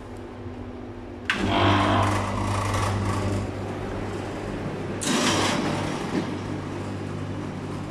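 Trotec TTK 125 S condensation dehumidifier switched on: about a second in its compressor and fan start with a sudden jump to a steady low hum and fan rush, over the hum of other dehumidifiers already running. A brief louder rush of noise comes about five seconds in.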